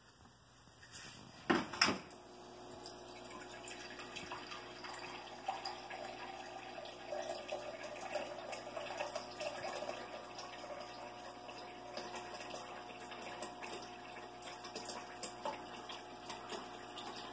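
Two knocks, then water streaming steadily from a refrigerator door water dispenser into a container, with a steady hum under it.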